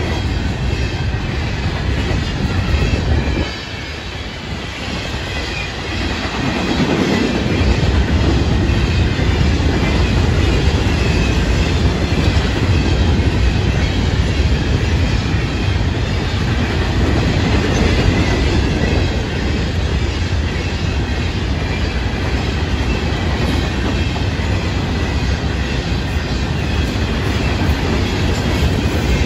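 Florida East Coast Railway freight train's hopper cars rolling past close by: a steady rumble of steel wheels on the rails, dipping quieter for a couple of seconds about four seconds in.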